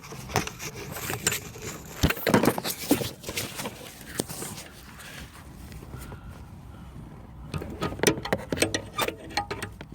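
Scattered clicks, taps and scrapes of a screwdriver and hands working at the screws of the ECU mounting bracket in a car footwell, with a denser run of clicks near the end.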